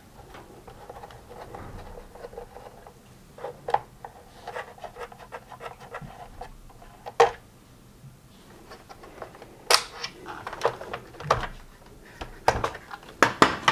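Small clicks and scrapes of a Torx screwdriver turning out screws in the plastic front assembly of a Gtech AirRam vacuum, then sharper plastic clicks and knocks in the last few seconds as the front pieces are pulled off.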